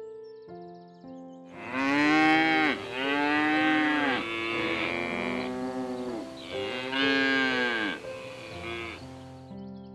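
A run of about five long, drawn-out animal calls, each rising and then falling in pitch, over soft background music.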